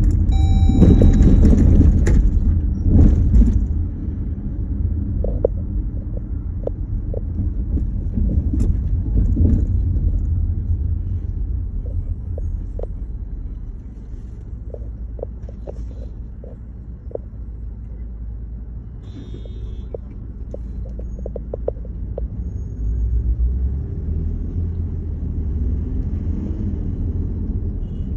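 A steady low rumble, louder for the first few seconds, with faint scattered ticks.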